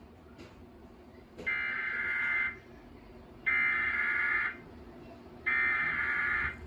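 Emergency Alert System SAME header played through a TV speaker: three one-second bursts of digital data tone, about a second apart, that encode and announce an incoming tornado warning.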